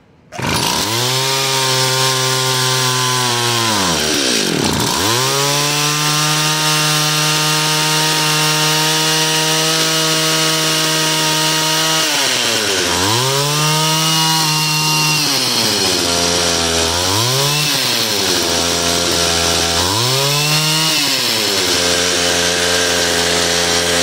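Tecumseh TC II two-stroke engine on a Power Drill ice auger, freshly fitted with a new carburetor and running on a rich 24:1 mix. It catches about half a second in and runs loudly. Its speed sags nearly to stalling about four seconds in and several times in the second half, each time picking back up, then settles to a steadier, slower run near the end as it is kept going.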